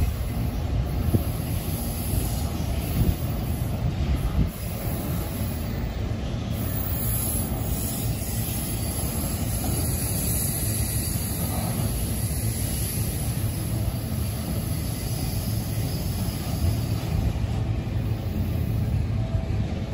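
Autorack freight cars rolling past: the steady rumble and clatter of steel wheels on the rails, with a few sharper knocks in the first few seconds.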